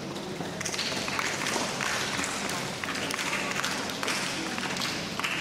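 Audience clapping, a dense patter of many hands that starts about half a second in and keeps on steadily.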